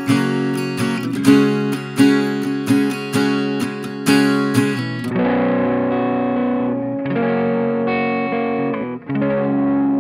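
Acoustic guitar strummed in chords, picked up close by a FiFine K688 dynamic microphone. About five seconds in it switches to an electric guitar played through distortion, holding chords that change about every two seconds.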